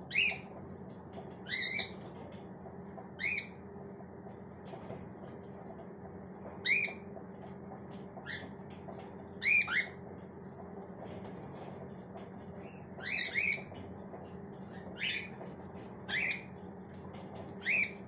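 Cockatiels calling: short, sharp chirps that slide down in pitch, about a dozen of them, singly or in quick pairs every second or two, over a low steady hum.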